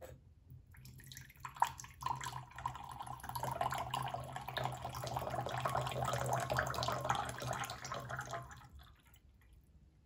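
Water pouring in a thin stream from a small Yixing clay teapot's spout into a glass pitcher. The splashing starts about a second in, builds to a steady pour, and tapers off near the end as the stream thins.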